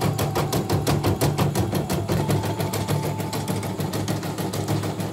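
Portable embroidery machine stitching at a steady rapid rate, about ten needle strokes a second, over its motor's steady hum. The machine has just been repaired after arriving totally dead, and it is running smoothly.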